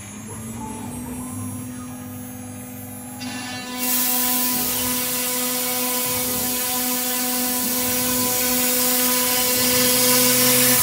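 1325 CNC router's spindle running with a steady whine, joined about four seconds in by a loud hiss as the engraving bit cuts into the MDF sheet.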